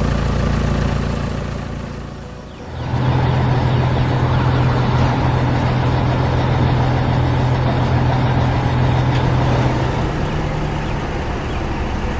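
Engine sound effect running steadily. It fades out about two seconds in, and a louder steady engine hum starts just before the three-second mark and carries on.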